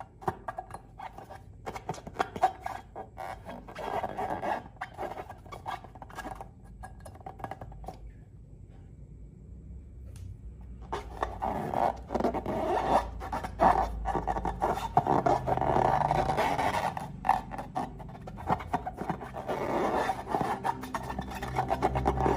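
Slime being worked by hand and tool: a dense run of sticky clicks, crackles and scraping. It drops away for a few seconds about eight seconds in, then picks up again, louder.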